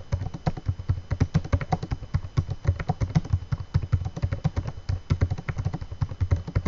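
Fast typing on a laptop keyboard: a dense, uneven run of key clicks, about ten a second.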